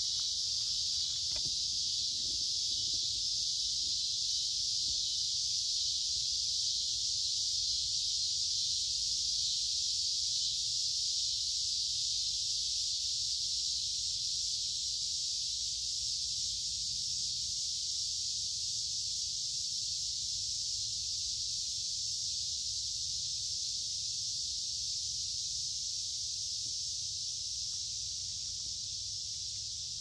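A chorus of cicadas singing: a loud, high, unbroken buzz that eases slightly near the end.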